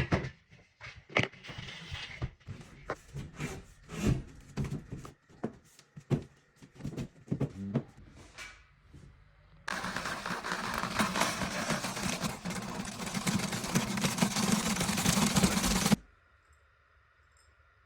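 Irregular knocks and clatter from drywall and board being handled and fitted, then a power tool runs steadily for about six seconds and cuts off suddenly, leaving faint room tone.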